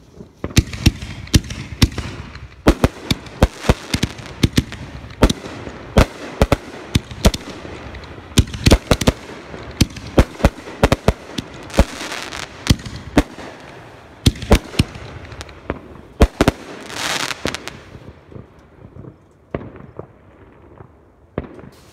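Aerial fireworks bursting overhead in a rapid, dense string of sharp bangs. About two thirds of the way through there is a second-long crackling hiss, and the bangs thin out near the end.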